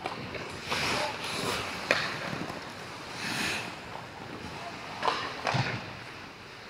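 Ice hockey skate blades scraping and carving the ice in several hissing swishes, with a few sharp clacks of stick and puck: one about two seconds in and two more around five seconds in.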